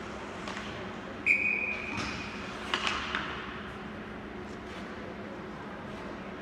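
A referee's whistle blows one sharp, steady blast lasting a little over a second, about a second in. A few sharp knocks follow right after, over a steady rink hum.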